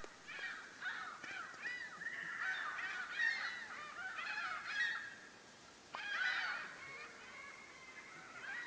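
A flock of gulls calling, many short cries overlapping one another. The calls pause briefly a little past halfway, start again in a fresh burst, then grow fainter.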